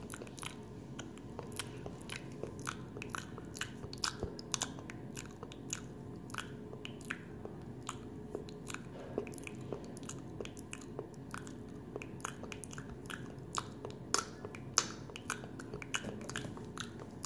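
Someone eating and chewing close to the microphone, with many sharp, irregular crunching clicks, several a second, over a steady low background hum.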